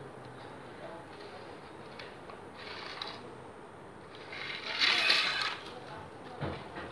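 Hands rubbing and mixing wet masala paste into whole fish, a scraping, crushing sound that is loudest about five seconds in, with a short knock near the end.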